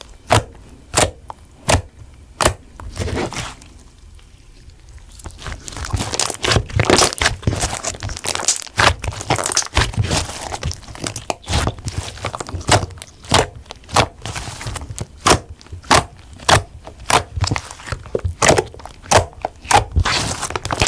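Slime being squeezed and kneaded by hand. A few sharp clicking pops come in the first seconds, then from about five seconds in there is a continuous run of sticky pops and crackles.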